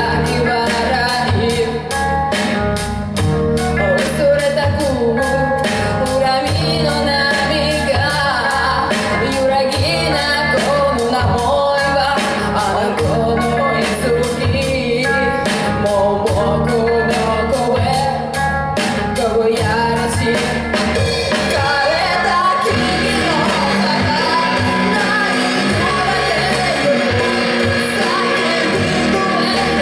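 Rock song: a singer's vocals over a full band with drums and guitars. The steady drum hits drop away about two-thirds of the way through.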